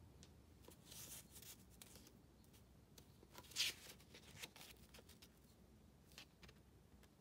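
Faint handling noise of a paper sketchbook: a few short, scattered rustles and light scrapes against near silence, the plainest about a second in and about three and a half seconds in.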